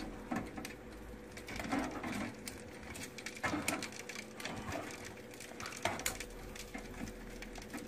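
Faint, scattered clicks and light scrapes of chicken wings being handled and turned over in a toaster oven's air-fry basket, over a low steady hum.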